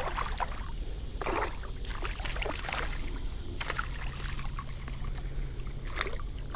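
River water splashing and sloshing in short, irregular bursts as a wading angler moves in the shallows. A small splash right at the start is a little bass dropped back into the water.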